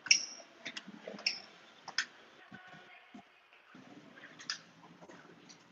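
Footsteps on a hard floor and up a staircase, heard as irregular sharp clicks, roughly one every half second to a second.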